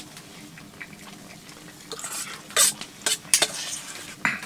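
Spoons scraping and clinking against metal plates and bowls as people eat, in scattered short scrapes and clicks, most of them in the second half.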